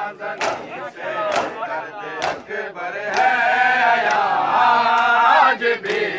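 A crowd of men doing matam: chest slaps struck in unison, roughly once a second, under male voices chanting a noha. About three seconds in, the chorus of voices swells and sings together, louder.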